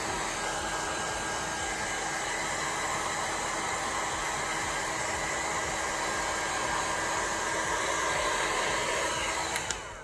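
Heat gun on high heat and high fan blowing steadily through a long extender nozzle across wet resin, pushing it out into waves. It cuts off with a click near the end.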